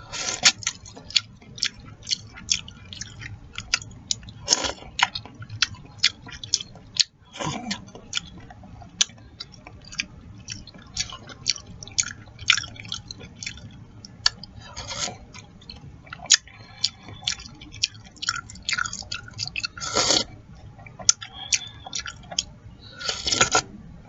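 Close-miked mouth eating chicken noodle soup: steady chewing with rapid wet lip smacks, several a second. About six longer slurps break in along the way.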